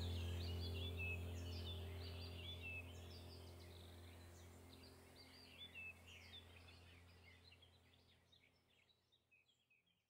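Birds chirping over a steady low drone, the whole bed fading out smoothly over several seconds.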